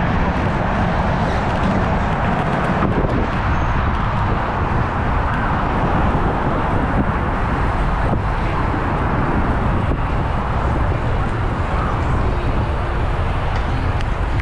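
Steady rush of wind buffeting the microphone of a camera riding on a moving fat-tyre electric bike, with the low rumble of tyres on concrete underneath.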